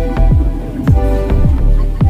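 Electronic background music with a steady beat of deep bass-drum hits under held chords.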